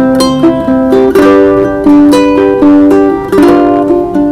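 Ukulele strummed in chords, about three strums a second.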